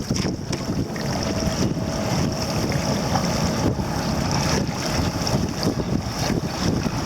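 Gusty wind buffeting the microphone in an uneven low rumble, over a steady hiss of moving water.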